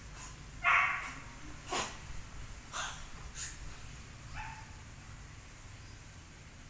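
A few short animal calls, like barks or yips: the first, about a second in, is the loudest, followed by several sharper, noisier ones and a weaker call a little after four seconds.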